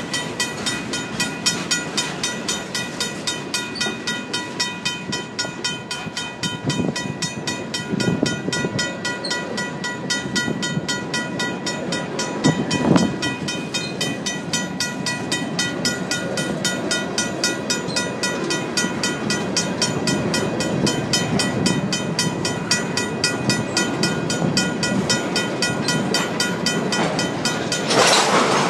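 A RACO mechanical crossing bell rings steadily in rapid, even strikes over the rumble and clatter of a passing freight train's boxcars and tank cars. A few louder clanks come from the wheels, and the loudest burst of clatter comes near the end.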